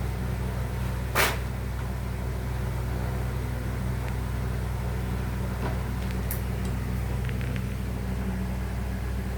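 Steady low hum with a sharp click about a second in and a few faint ticks later.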